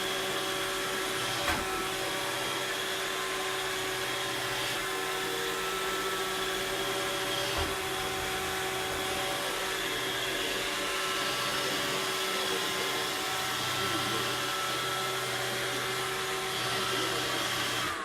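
Robot vacuum cleaner running: a steady whirring hum with a constant whine, broken by two brief knocks a few seconds apart.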